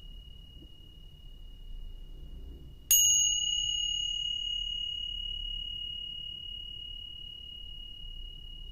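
Tingsha cymbals struck together once, about three seconds in, with a sharp clear ding that rings on in a long, slowly fading high tone. Before the strike, the ring of an earlier strike is still sounding.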